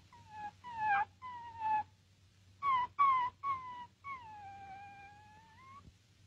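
Cat meowing as a comedy sound effect: a run of short meows that fall in pitch, then one long drawn-out meow near the end.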